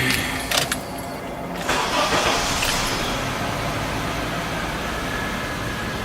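Honda VTEC engine with a newly replaced cam chain being started on jump leads. A couple of clicks come about half a second in, then the engine fires about 1.7 s in and settles into a steady idle.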